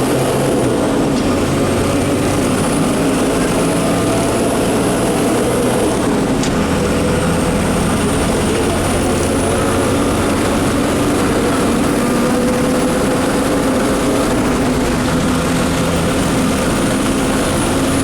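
Public bus's diesel engine running under way, a steady loud hum with road and rain noise. A faint high whine climbs slowly and drops back a few times.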